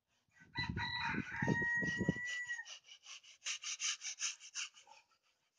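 A rooster crowing once, a long held call that ends about two and a half seconds in, followed by a fast run of short high-pitched ticks, about seven a second.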